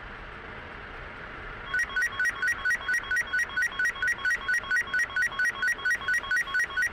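Steady road noise from a moving car, then about two seconds in a rapid electronic beeping starts, about four beeps a second, alternating between two pitches and louder than the road noise.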